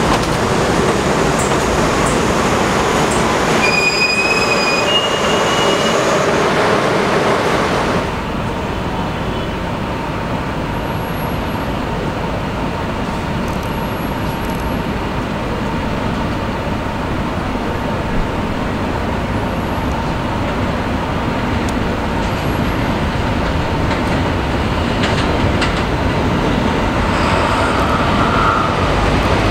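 A Budd R32 subway train running past on an elevated steel structure, its wheels squealing for a few seconds. After about eight seconds the sound changes to a Bombardier R179 subway train running steadily as it approaches on the elevated track.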